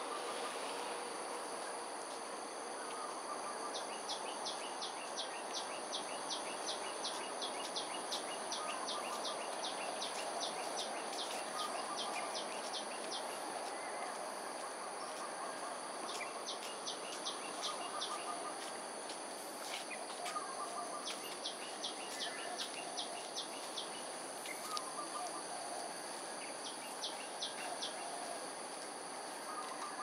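Outdoor dawn ambience: a steady high-pitched insect drone, with a bird repeating sharp high notes at about three a second in several runs, and other birds chirping more softly underneath.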